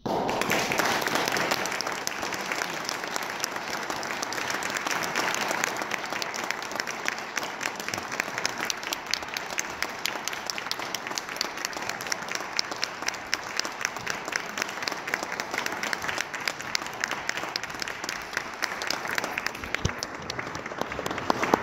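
Concert audience applauding: many hands clapping, breaking out all at once and loudest at first, then settling into steady clapping.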